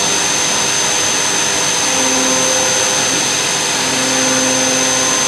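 Leadwell V30i CNC vertical machining centre milling brass with a small end mill under flood coolant: a steady hiss of coolant spray with a high steady whine. A lower tone comes in twice, about two and four seconds in, as the cut goes on.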